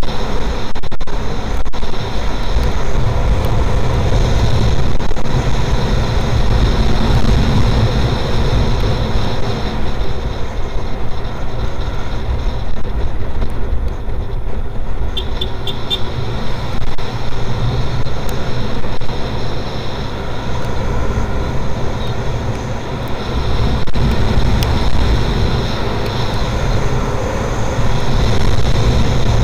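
Wind rushing over an on-board camera microphone on a Yamaha NMAX 155 scooter cruising at about 90 to 97 km/h, with the scooter's engine running steadily underneath. A few quick faint ticks come about halfway through.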